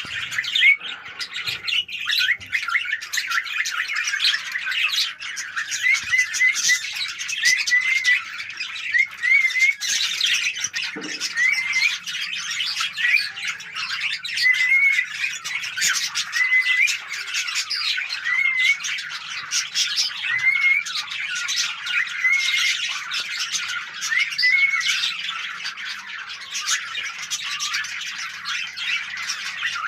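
A flock of budgerigars chattering without a break: many overlapping chirps, squawks and short warbled notes.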